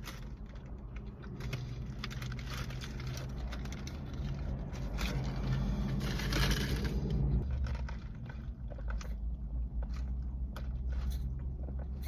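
Chewing and handling of a breakfast sandwich, small clicks and crunches, over a steady low hum, with a louder rustling noise lasting a couple of seconds about five seconds in.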